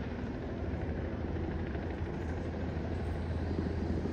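Steady low engine rumble of a helicopter overhead.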